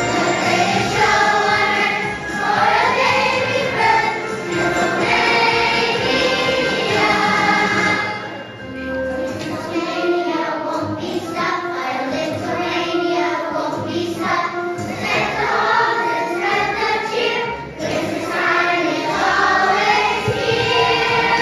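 Children's choir singing a musical-theatre song with instrumental accompaniment.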